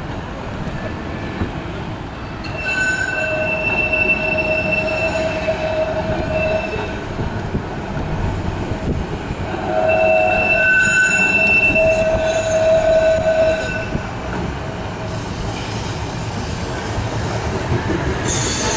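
Blackpool Balloon double-deck tram running on its rails, its wheels squealing on curved track in two spells of steady high-pitched tones, each about four seconds long, over the rumble of the running gear. A short loud rush comes near the end as the tram draws alongside.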